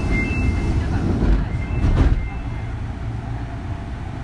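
Kintetsu 3200 series motor car running, heard from inside the car: a steady low rumble of wheels on rail. There are a few short high tones in the first half second and a single knock about two seconds in.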